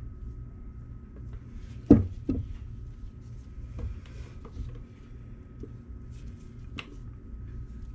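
A few sharp knocks and clatters from a plastic pitcher and spatula being handled and set against a wooden board, the loudest about two seconds in with a second just after and lighter taps later. A steady low hum runs underneath.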